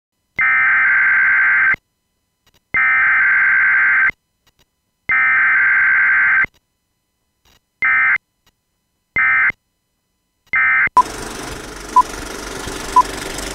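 An electronic beep tone sounds in a pattern of three long beeps and then three short ones. It is followed by a film-leader countdown: a short beep each second over a steady hiss.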